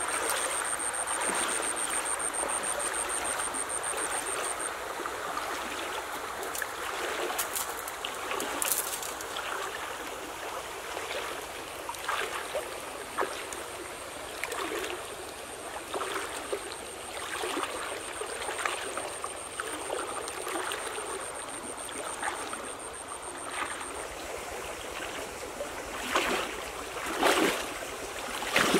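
Shallow stream running, with water splashing and swishing around the legs of a person wading through it; the splashes come louder and closer together near the end.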